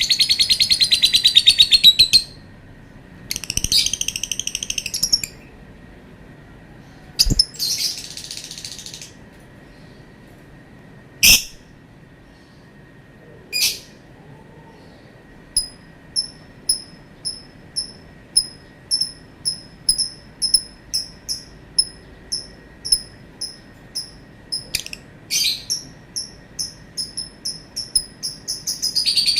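Lovebird calling: three rapid, buzzy chattering trills of about two seconds each, then two sharp clicks, then a long run of short, high chirps at about one and a half a second, with another long chattering trill starting at the end.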